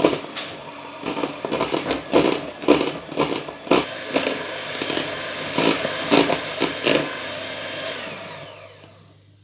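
Handheld electric mixer whisking egg whites into a meringue, its motor running steadily with frequent clattering knocks from the beaters. The motor winds down and stops near the end.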